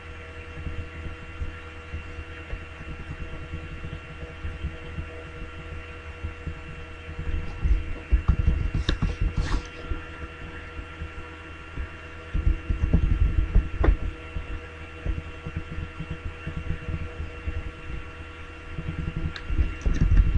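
Steady electrical hum with a few fixed tones in it, from the recording setup. Stretches of low thumping come about eight seconds in, about thirteen seconds in and near the end, with a couple of sharp clicks around nine seconds.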